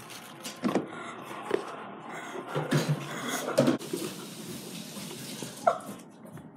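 Cardboard shipping box handled by hand: flaps and packing paper rustling, with a few short knocks and scrapes as the phone box is lifted out.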